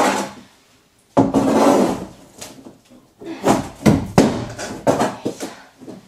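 A frightened kitten trapped inside a wall hissing hard, one long hiss about a second in, then several shorter sharp sounds.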